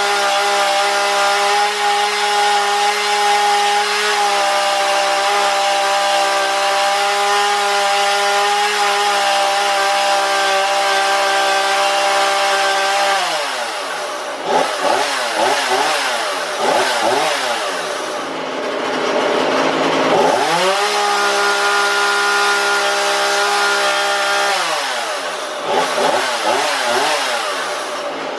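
Small Husqvarna two-stroke chainsaw held at full throttle with a steady high pitch, then let off about halfway through, its pitch dropping into an uneven, wavering low-speed run. It is revved back up to a steady full-throttle note for a few seconds and let off again near the end, a check of the carburetor's high-speed tune by ear.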